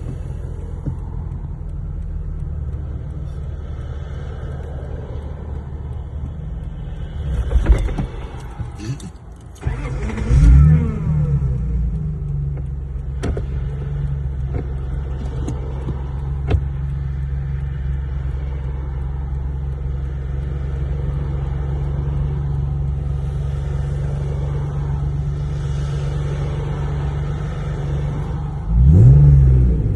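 Lexus GS 300's 2JZ-GE inline-six running steadily while driving, with a short rev that rises and falls about ten seconds in and another rise in revs near the end.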